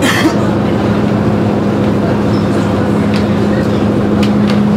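Ferry engines running with a steady, loud drone and hum, heard from inside the passenger cabin. A steady tone sets in just after the start, and there is a short burst of noise at the opening and a few faint clicks.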